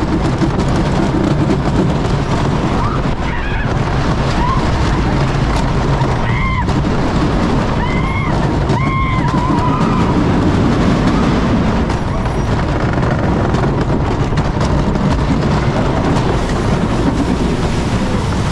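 Wooden roller coaster train running at speed over wooden track: a loud, steady rumble of the wheels. A few short high-pitched yells from riders come between about six and nine seconds in.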